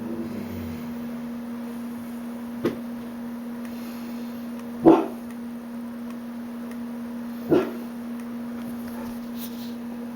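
A dog barking: three short barks a couple of seconds apart, over a steady low hum.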